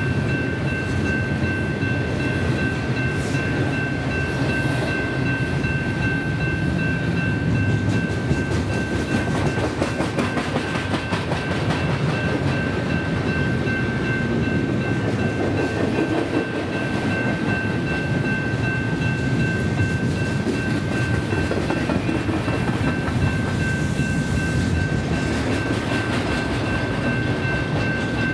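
Double-stack intermodal container train rolling past: a steady rumble and clatter of steel wheels on the rails as the well cars go by, with a thin, steady high-pitched tone over it.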